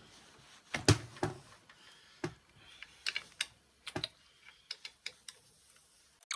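Irregular metallic clicks and knocks of a hand wrench being worked on a bolt in a cast-iron drill press head, with two heavier knocks about a second in.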